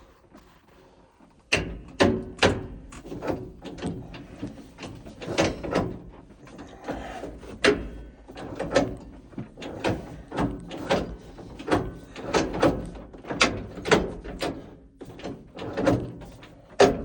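International Harvester 1566 tractor's diesel engine being cranked over, starting about a second and a half in: a low steady rumble with loud knocks recurring irregularly about once or twice a second.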